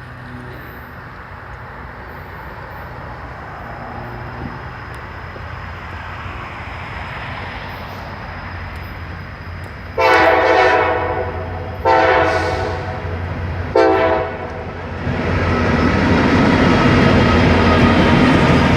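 Norfolk Southern diesel freight train approaching with a rising rumble, its locomotive horn sounding two long blasts and a short one about halfway through. The lead locomotive and cars then pass close by, with a loud engine rumble and wheels clicking over rail joints.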